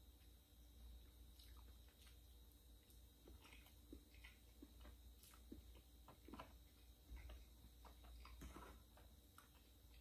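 Close-up chewing of black forest chocolate cake: quiet mouth sounds with short, irregular smacks and clicks throughout.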